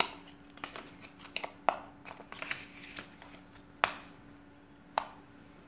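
Clear plastic sleeve crinkling as thin cards are handled and pulled apart, with several sharp clicks and taps, the loudest a little under four seconds in and again at about five seconds.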